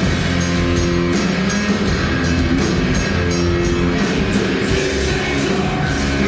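Heavy metal band playing live: distorted electric guitar and bass chords over a drum kit, loud and steady, as heard from the audience.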